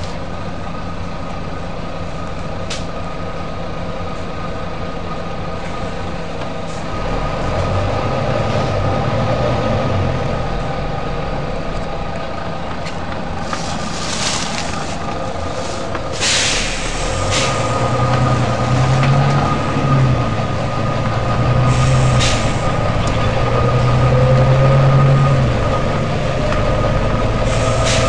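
Volvo B9TL bus's diesel engine running, its hum and gear whine rising as it pulls. Several short hisses of compressed air from the air brakes and suspension cut in, the loudest about sixteen seconds in.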